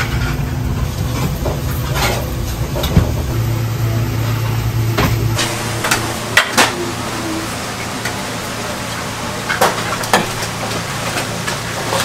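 Noodle-kitchen clatter: a steady low hum that drops away about five seconds in, then a few sharp clanks of a metal strainer basket and steel bowls, in two pairs a few seconds apart.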